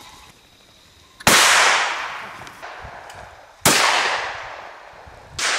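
Two shotgun shots about two and a half seconds apart, each a sharp crack followed by a long, fading echo: both barrels of a Browning 725 over-and-under fired at a driven pheasant. A third, fainter shot comes near the end.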